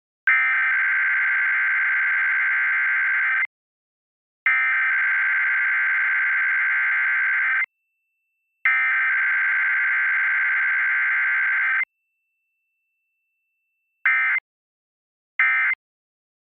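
Emergency Alert System Required Weekly Test data tones: three long SAME header bursts of buzzy digital warble, each about three seconds with a second's pause between, then two short end-of-message bursts near the end.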